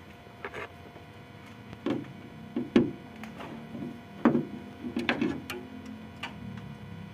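Irregular sharp clicks and knocks of hard objects being handled, about seven in all, the loudest about three seconds in and again a little past four seconds.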